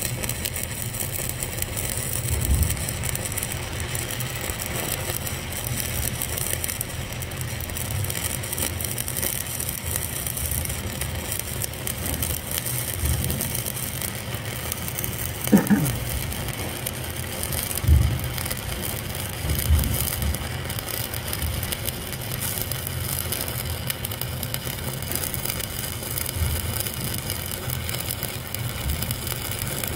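Stick-welding arc burning a 1/8-inch Lincoln Excalibur 7018 electrode on a fillet weld, a steady frying crackle. A few dull low thumps come about halfway through.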